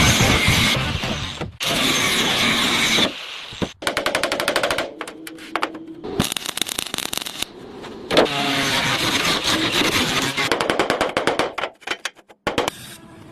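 Rapid mechanical rattling, a fast stream of sharp impacts, in several loud bursts that start and stop abruptly, with short silent gaps between them.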